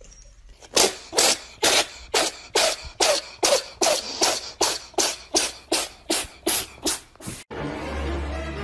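A rapid run of short, breathy hissing puffs, about three a second, that stops abruptly about seven and a half seconds in. A steady low hum follows.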